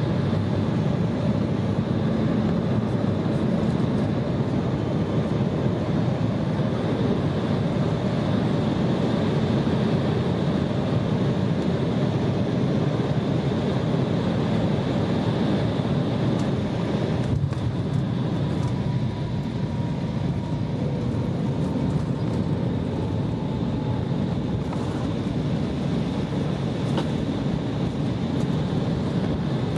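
Cabin noise over the wing of an Embraer E175 landing and rolling out on the runway: a steady rush of turbofan engine and airflow noise with a thin high whine. It eases slightly about two-thirds of the way through, and a faint falling whine follows as the jet slows.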